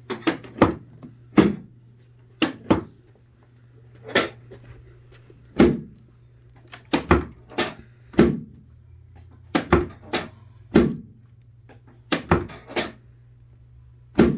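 A series of sharp knocks, often in pairs and a second or two apart, from chiropractic adjusting strikes on the pelvis and tailbone, meant to even out which leg is harder to lift. A steady low hum runs beneath.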